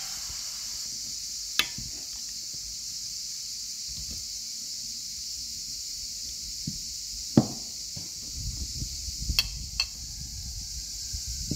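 Chicken and onion frying in a stainless steel pan with a steady, high sizzle. A few sharp clinks of a metal spoon on the pan cut through it. In the last few seconds chopped tomatoes tipped in from a board land with a run of soft thuds.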